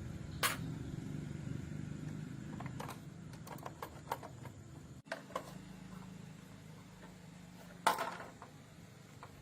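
Scattered sharp clicks and knocks of tools and parts being handled during repair work, the loudest near the end, over a low steady hum.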